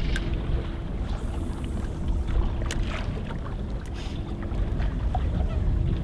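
Wind buffeting the microphone on a small fishing boat, a heavy low rumble with a faint steady hum that fades out about five seconds in, and a few sharp ticks scattered through it.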